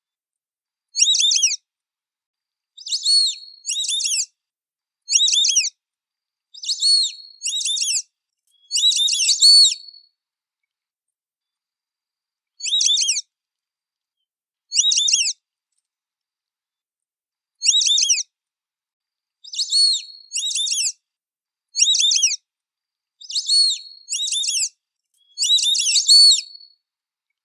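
White-faced whistling duck (irerê) calling: short phrases of two or three high, falling whistled notes, repeated every second or two, with a longer pause midway.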